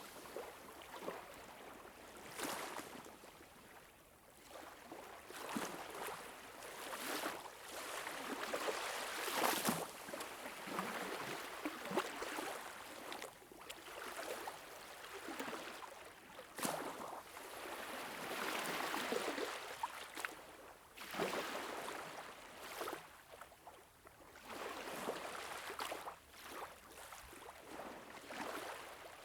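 Moving water that rises and falls in uneven surges, with brief sharper splashes now and then.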